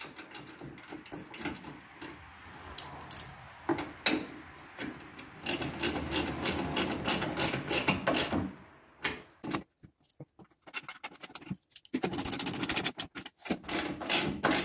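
Hand socket ratchet clicking in quick runs while driving in the bolts that hold a plastic radiator fan shroud, with knocks and rubbing of the shroud between runs.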